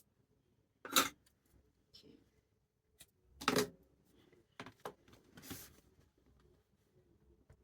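A few short rustling, scraping handling sounds as materials are picked up and moved about on a workbench; the loudest come about a second in and at about three and a half seconds.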